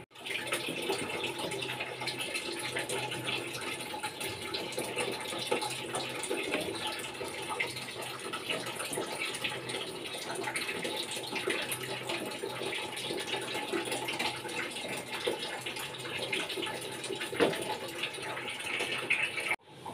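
Milk boiling hard in a nonstick pan on a high gas flame, bubbling and crackling steadily as it is boiled down. A flat spatula stirring it adds a few scrapes and ticks against the pan.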